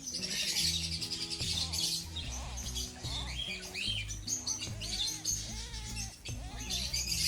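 Background music with steady low notes, and high chirping, tweeting sounds over it.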